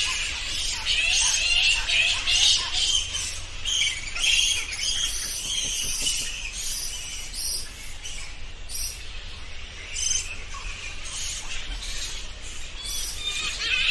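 Bats chittering and squeaking: a dense, overlapping stream of rapid high-pitched squeaks that thins out somewhat in the second half.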